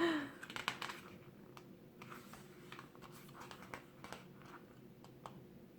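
Faint handling sounds of paper and packaging: scattered light clicks and short rustles as a photobook and DVD case are handled.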